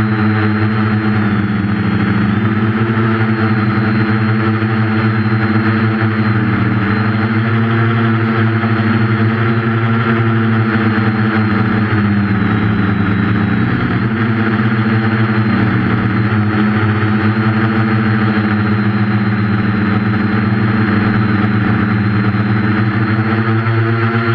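Quadcopter's four 1200 kV electric motors spinning 8.5-inch propellers, a steady buzz whose pitch dips and climbs every few seconds as the throttle changes, with a faint high whine above it.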